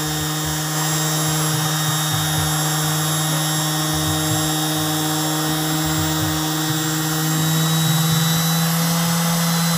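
Ryobi HS 150 orbital sander running steadily as it is pushed over wooden boards, a constant motor hum with the sanding pad's buzz. It gets a little louder near the end.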